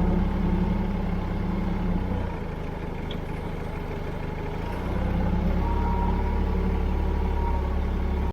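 Forklift engine running steadily, its level dropping about two seconds in and picking up again about five seconds in.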